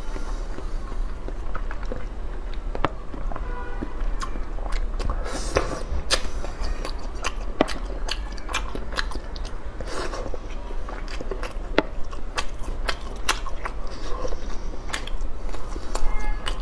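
Close-miked person biting and chewing food, with many sharp clicks and crunches coming irregularly.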